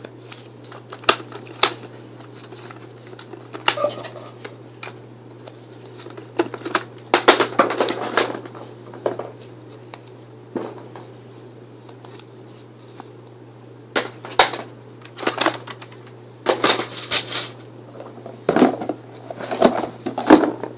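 Foam darts being loaded into Nerf blasters, in sped-up footage: scattered sharp plastic clicks and short bursts of clattering, over a steady low hum.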